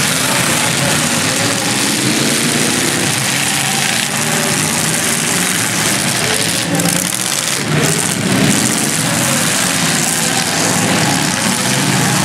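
Straight-stock demolition derby car engines running and revving in a loud, steady din, their pitch rising and falling.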